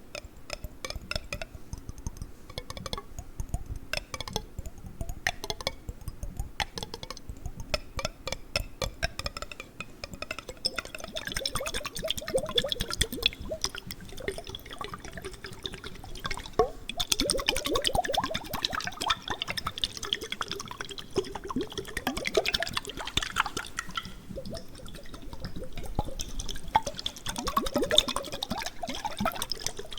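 A jar of water handled close to the microphone: a run of quick clicks and taps for about the first ten seconds, then water sloshing, trickling and gurgling inside the jar.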